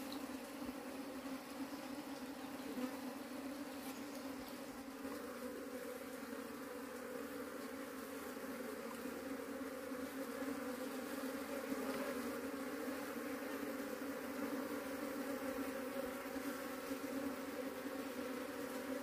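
A mass of honeybees buzzing around their hive, a dense steady hum that grows louder about halfway through.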